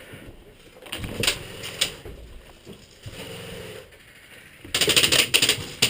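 Airsoft guns firing: a few scattered shots, then a short buzzing burst a little past three seconds in, then a louder stretch of rapid full-auto clicking near the end.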